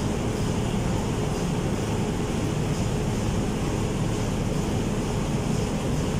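Steady machinery noise of a ship's engine room, a constant low drone that holds one level throughout.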